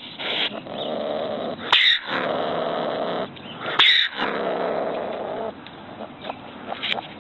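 Ringtail (cacomistle) calling: three drawn-out growling calls, each about a second and a half long, broken by short, sharp, hissy bursts.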